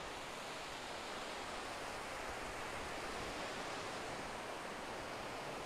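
Small waves breaking and washing up a sandy beach: a steady, even rush of surf.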